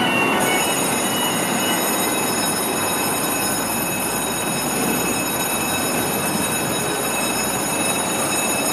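Busy street noise as a light fire rescue truck pulls out of the station, with a steady high-pitched squealing whine over it.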